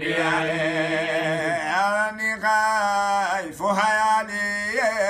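Male voice chanting an Arabic devotional poem unaccompanied, stretching its syllables into a long melodic line that wavers and slides up and down over a steady low held note, with short breaks for breath.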